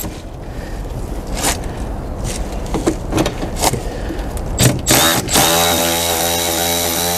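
Cordless electric ratchet on a 13 mm socket undoing a bolt: a few sharp clicks of the tool on the fastening, then from about five seconds in its motor runs steadily with a high whine.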